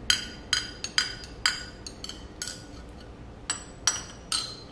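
A metal straw clinking against the inside of a ceramic mug as the drink is stirred: about eight light, ringing clinks at uneven intervals.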